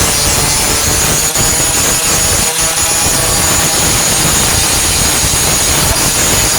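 A 4-1/2-inch angle grinder with a grinding disc runs steadily against steel, grinding down the welds on a tailgate patch. The grinder holds a steady high whine over the scraping noise of the disc on metal.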